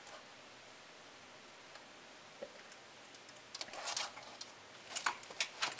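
Quiet room tone, then from about three and a half seconds in a few light clicks and rustles of hands handling a plastic case and setting it down on a tabletop, with a sharper click near the end.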